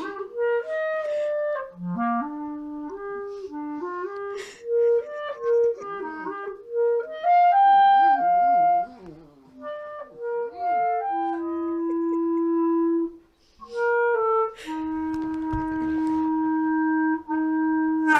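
Clarinet playing a slow melody of single notes, ending on two long held low notes. Midway, a cockapoo puppy's wavering howl briefly joins in under a high held note.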